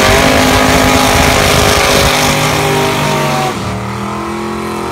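Drag car doing a burnout: the engine is held at high revs while the rear tyres spin and squeal. About three and a half seconds in, the engine note drops lower and the tyre squeal fades.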